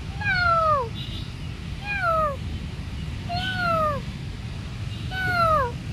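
Tabby kitten meowing four times, about every second and a half, each meow falling in pitch.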